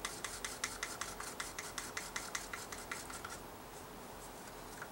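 A stirring stick tapping rapidly against the sides of a small cup as two Varathane stains are mixed together, about six clicks a second, stopping about three and a half seconds in.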